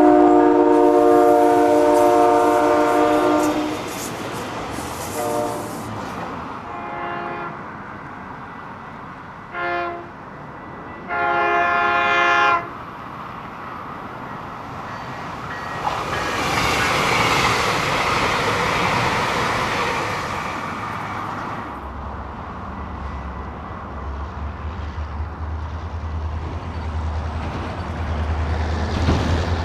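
Train horn blowing a series of blasts: a long one, a few short ones and another long one. The train then passes with a rushing noise, and from about two-thirds of the way in a low steady engine rumble is heard.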